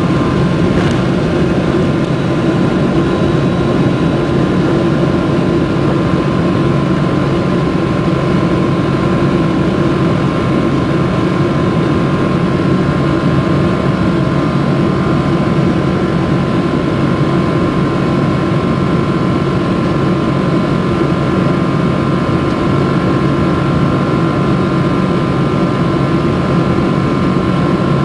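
Boeing 777-200ER's Rolls-Royce Trent engines at takeoff thrust, heard inside the cabin over the wing: a loud, steady roar with a high fan whine. It stays even through liftoff and the initial climb.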